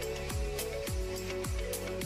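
Background music with a steady beat, a kick drum about twice a second over held synth tones.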